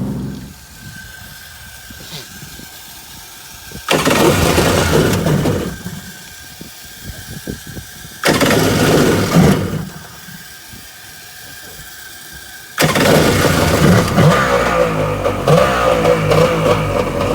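A 1998 Kawasaki STX 1100 jet ski's two-stroke engine cuts out within the first second. It fires up twice for about two seconds and dies each time, then starts a third time about 13 seconds in and keeps running.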